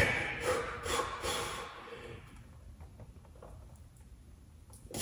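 A man's hard, forceful breathing while straining through a heavy barbell bench press set: a loud exhale at the start, a few quicker breaths over the next couple of seconds that fade, then another sharp breath near the end.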